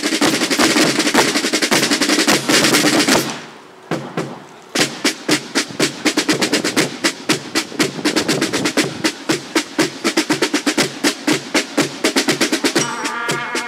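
Marching band snare drums playing a fast, loud cadence with rolls. The drums stop for about a second and a half some three seconds in, then resume. Near the end, brass instruments join with sustained notes over the drumming.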